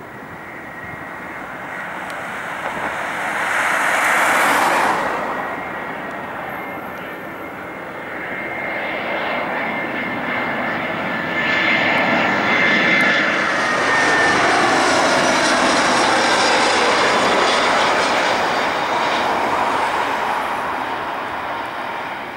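Airbus A320-214's CFM56 jet engines on final approach: a steady rumble with a high fan whine that swells as the aircraft passes overhead, loudest about 4 s in and again through the middle and later part. Around halfway through the whine falls in pitch as the jet goes by, and the sound fades near the end.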